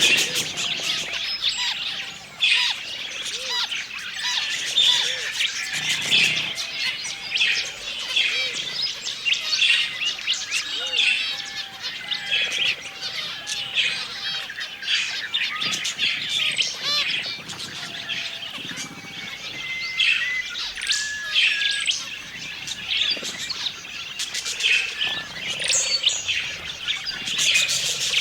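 A flock of budgerigars chirping, warbling and squawking together in a continuous chatter of many overlapping calls.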